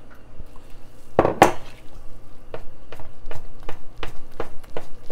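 Bread dough being mixed in a stainless steel bowl: light clinks and taps against the metal bowl, about two or three a second, with one louder knock about a second and a half in.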